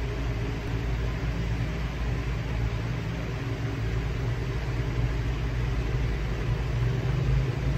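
Steady low mechanical hum of a running motor, unchanging throughout, with an even background hiss.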